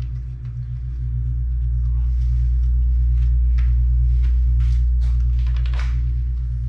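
Light metal clicks and scrapes as the tail shaft housing is worked down onto the NP208 transfer case, a few sharper ones after the middle. Under them runs a steady low hum, the loudest sound throughout.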